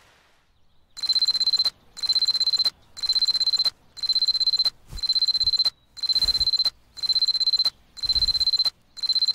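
Electronic alarm clock beeping: a high, fast-pulsing beep about once a second, starting about a second in and repeating nine times.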